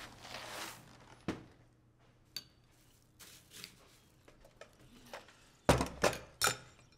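Ceramic plates handled and set down: light rustling and clicks, then three sharp clattering knocks in quick succession about six seconds in.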